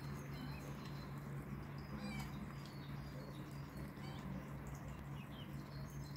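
Faint outdoor background: scattered short, high bird chirps over a steady low hum.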